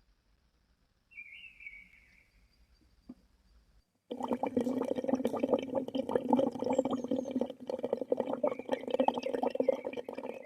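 A small bird calls faintly over near quiet. About four seconds in, loud rushing water cuts in abruptly, full of small splashing clicks, with faint bird calls still above it.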